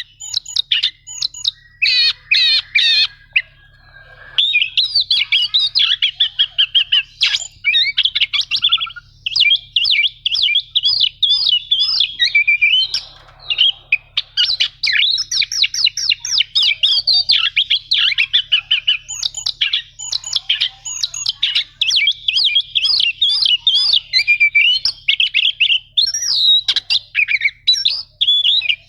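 Oriental magpie-robin (kacer) singing a fast, nearly unbroken chattering song of rapid trills and rolls, with short lulls about four and thirteen seconds in.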